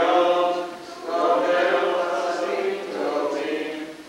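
Congregation singing a prayer together in long held phrases, with short breaks about a second in and near the end.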